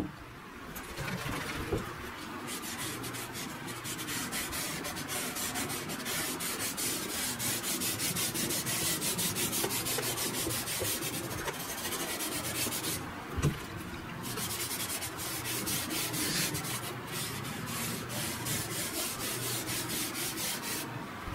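A cloth rag rubbed back and forth over a bare wooden board, wiping on wood stain, with a steady rasping swish. A single sharp knock about two-thirds of the way through.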